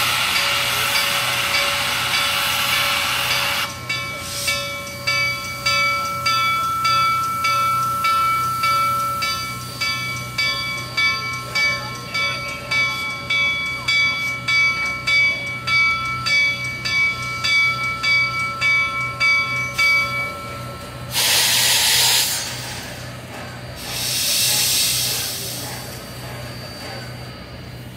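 Reading 2102 steam locomotive: steam hissing steadily for the first few seconds, then its bell ringing about twice a second for some fifteen seconds, then two loud blasts of steam hiss a few seconds apart near the end.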